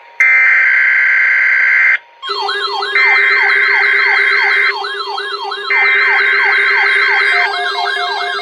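Weather radio emergency alert: three screeching bursts of digital alert-header data, with a wailing siren alarm that starts about two seconds in, rises and falls about two to three times a second, and sounds over them. This marks the start of a severe weather bulletin.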